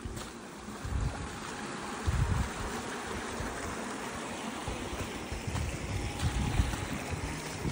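Wind buffeting the microphone in irregular low gusts over a steady rushing hiss.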